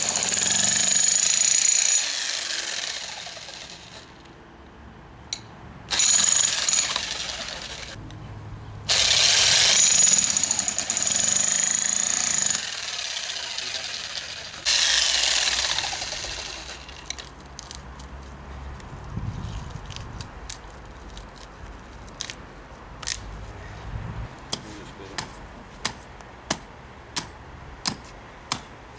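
Electric demolition hammer with a chisel bit breaking into a tree stump, running in several bursts of a few seconds each and stopping in between. After it stops, a run of sharp hatchet blows chops into the stump's wood, about two a second near the end.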